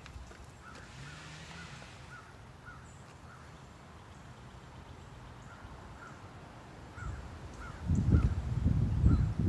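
A bird gives short, repeated chirping calls. From about eight seconds in come loud, low bursts as the chainsaw is pull-started, being tried without the choke.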